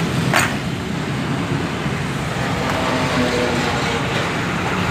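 Steady rumble of road traffic, with one sharp click about a third of a second in.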